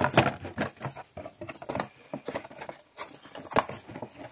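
Irregular light clicks, taps and rustles of small objects being handled, with a louder click about three and a half seconds in.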